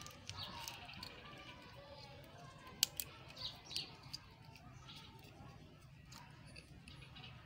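Faint clicks and handling noise from fingers working small plastic wire connectors on a generator's alternator, the sharpest clicks about three seconds in; faint bird chirps in the background.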